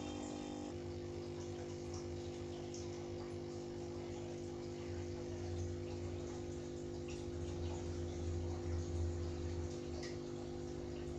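Steady electrical hum of aquarium equipment with faint trickling and dripping water. A low rumble swells between about five and ten seconds in.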